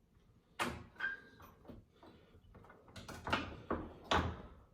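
Handling noises: a scattering of short knocks, clicks and brief scrapes, the loudest about three and four seconds in.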